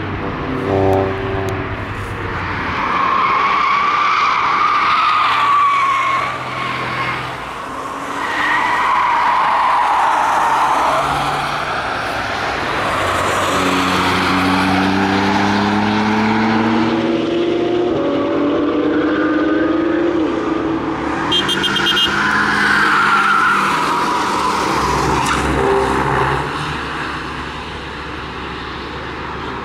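Small road cars driven on the limit through track corners, tyres squealing several times over their engines as they pass. Midway an engine note climbs steadily in pitch as a car accelerates hard.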